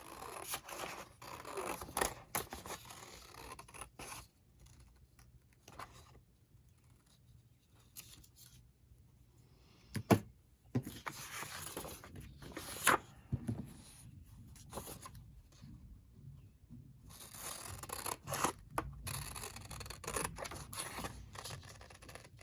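Paper and craft materials being handled on a work table: rustling and scraping, quieter for a few seconds in the middle, with two sharp knocks partway through.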